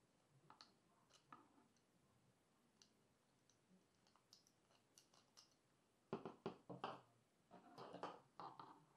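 Scattered faint clicks and taps, then two bunches of quick, louder clicking and knocking starting about six seconds in.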